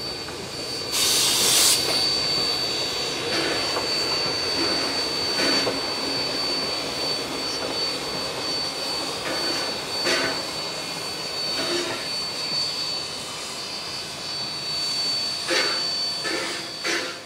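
Steam locomotive 3265, a NSW 32 class 4-6-0, running slowly past with its train: a steady hiss of steam, with a loud burst of steam about a second in and a steady high-pitched tone over it. A few louder knocks and chuffs come at uneven intervals.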